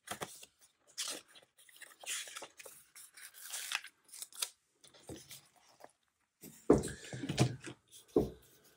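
Paper rustling and crackling as a sticker is peeled off a sticker-book sheet, followed near the end by a few louder thuds and rustles as the sticker books and planner pages are shifted on the desk.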